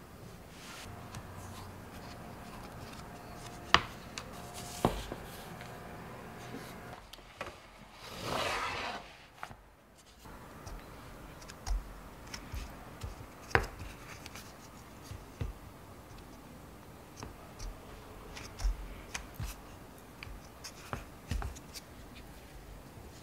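Handling sounds of rolling out and cutting puff pastry on a wooden board: a wooden rolling pin and hands rubbing over the dough, with scattered sharp knocks on the board, the loudest about four seconds in, and a short rushing rub around eight seconds. Near the end a fluted pastry cutter is pressed through the dough onto the board.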